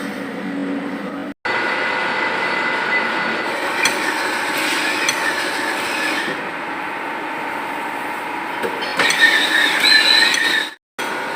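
Engine cylinder block being machined: a steady machine running sound with a high, wavering whine that rises in the middle and again near the end. The sound cuts out abruptly twice.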